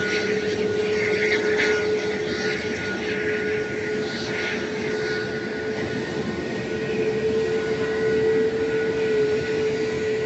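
Airliner turbofan engines running on the runway: a steady whine over a continuous rushing noise, swelling a little about eight seconds in.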